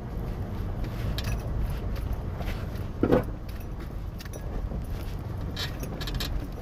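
Toyota 4Runner creeping over rocks with its crawl control engaged: a steady low engine and drivetrain rumble with scattered clicks and rattles, and one louder thump about three seconds in.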